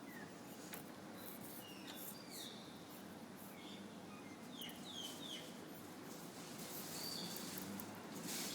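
A dozen or so short, high chirps falling in pitch, scattered irregularly and clustering about five seconds in, over light clicks and rustling.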